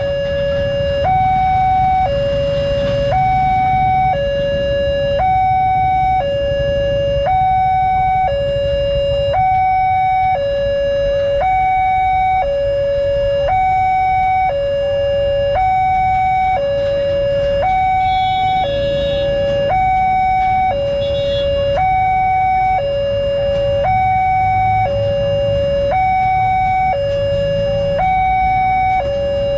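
Railway level-crossing electronic warning alarm sounding a steady two-tone high-low pattern, each tone held about a second, signalling that the barrier is down for an approaching train. Motorcycle engines idle underneath.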